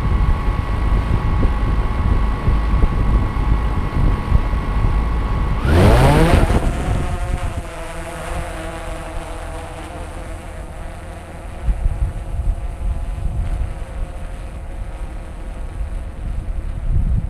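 DJI Phantom 3 Professional quadcopter's four electric motors and propellers: a steady whine over a low rumble, then about six seconds in the motors spool up with a sharp rising whine as it takes off. After that a wavering, insect-like propeller buzz as it hovers and climbs away, somewhat quieter.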